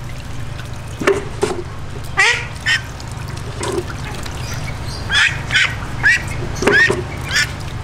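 Young domestic duck quacking again and again, about ten short calls, while it is held and washed, over a steady low hum.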